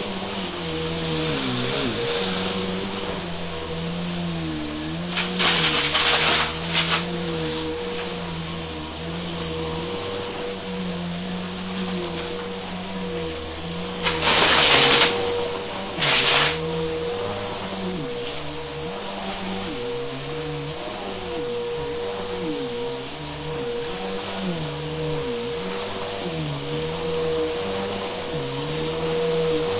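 Bissell upright vacuum cleaner running over carpet: a steady motor whine over a lower hum that dips and rises with each push and pull. Twice it breaks into loud bursts of crunching as debris is sucked up from the carpet.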